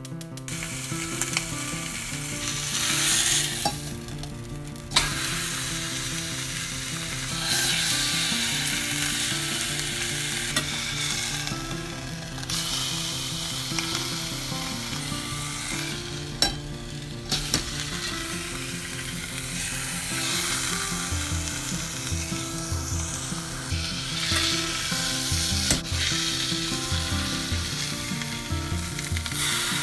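A block of pork leg sizzling as it sears in a dry pot with no oil, its surface browning, with a few sharp clicks along the way.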